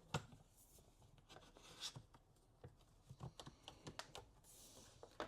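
Faint, irregular clicks and taps of a clamp being handled and fitted.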